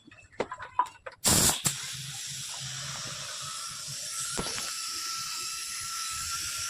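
A few clicks, a short loud blast of air about a second in, then a steady hiss of compressed air with a faint steady whistle.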